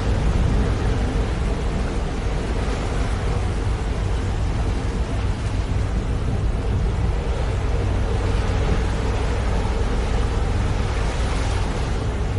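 A steady engine drone with a low hum under an even rushing noise, unchanging throughout.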